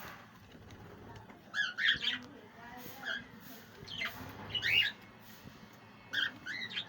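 Budgerigars calling: short squawky chirps in four bursts of two or three calls each, with brief pauses between.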